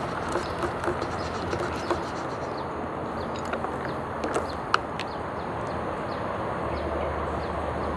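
A metal stirrer clinking lightly against the inside of a paper cup of hot milk tea in the first two seconds, then ice going into the cup with a few sharp clicks around four to five seconds in, over a steady outdoor background hiss.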